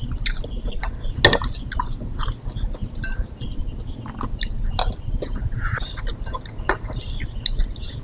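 A person chewing and biting mouthfuls of lontong kikil (rice cake with chewy beef-skin stew) close to the microphone, with many short, irregular mouth clicks, the loudest about a second in.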